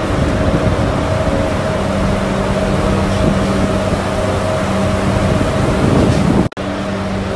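Refrigeration machinery of a cold storage room running: a loud, steady drone of evaporator fans with several steady hum tones in it. The sound cuts out for an instant about six and a half seconds in.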